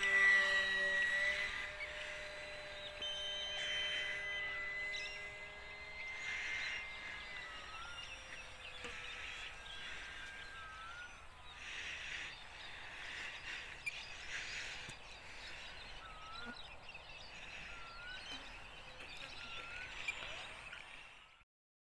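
Small electric motor and propeller of a UMX Cessna 182 radio-controlled plane whining steadily, loudest about a second in as it passes close overhead and fading out after about eight seconds. Repeated short bird chirps follow.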